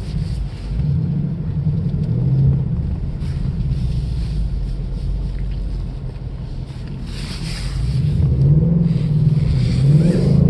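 2018 Ford Mustang GT's 5.0 V8 engine revving up and down under throttle on snow, with traction control switched off. There is a rush of hiss about seven seconds in, and the engine climbs again near the end.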